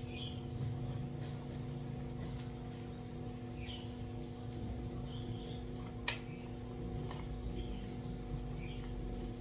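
Cats being fed and eating from their bowls: a sharp clink of a food bowl about six seconds in and a lighter one a second later, over a steady low hum, with faint short high chirps now and then.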